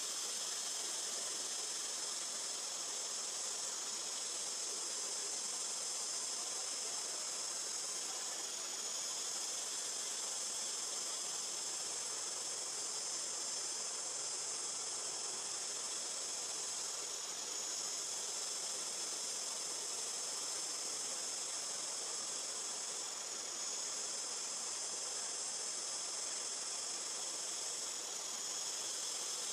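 A steady, high-pitched drone of an insect chorus, its pitch shifting slightly every several seconds.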